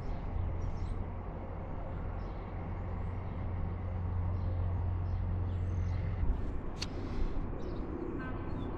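Outdoor background: a steady low rumble that drops away about six seconds in, faint bird chirps, and one sharp click about seven seconds in.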